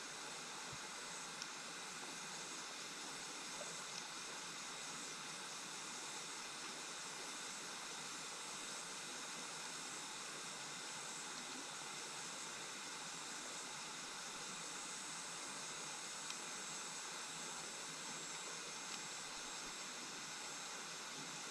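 Steady rush of flowing stream water, even and unbroken, with a few faint ticks.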